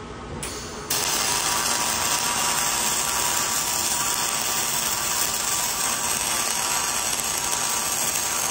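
Dual-shield flux-cored wire welding arc (.045 wire under 75/25 argon-CO2 gas), striking about a second in and then running a steady loud hiss as a weld pass is laid on the new hook's base.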